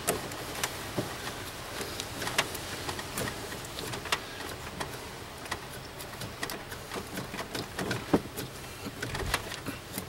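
Pliers gripping and working a car battery's cable terminal: irregular small metallic clicks and scrapes, several every second, over a steady hiss.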